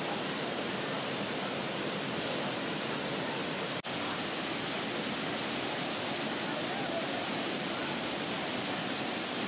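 Steady rushing of a large waterfall plunging into a pool, with a momentary break in the sound about four seconds in.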